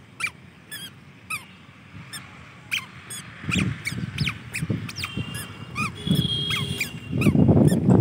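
A toddler's squeaky sandals chirping with each step, short falling squeaks at an irregular walking pace. A low rumble builds from about halfway through and is loudest near the end.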